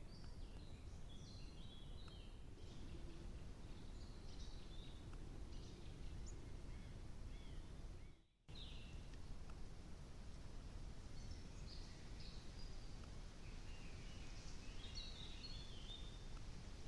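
Small woodland birds chirping and singing in short scattered phrases over a steady low background hiss. The sound drops out briefly about halfway through, then the birdsong goes on.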